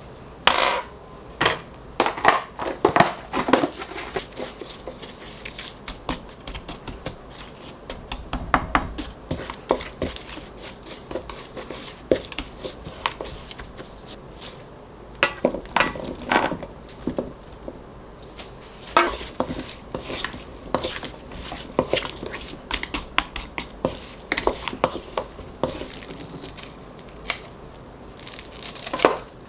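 Irregular clinks, knocks and clatter of dishes and cutlery being handled, coming in clusters.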